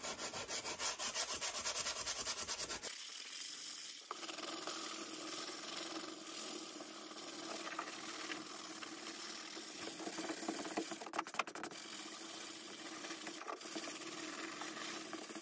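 Coarse-grit sanding sponge rubbed back and forth by hand along a rusty steel bayonet blade, scrubbing through the rust layer. Quick, rhythmic strokes for the first few seconds, then a steadier scraping with a few harder strokes near the end.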